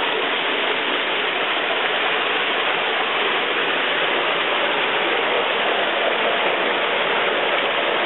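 Underground cave waterfall pouring over rock: a steady rush of falling, splashing water.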